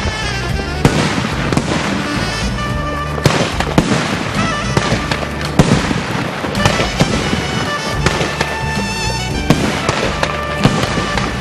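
Fireworks going off in quick succession, with many sharp bangs and crackles scattered through, the loudest about halfway. Background music with a steady bass line plays under them.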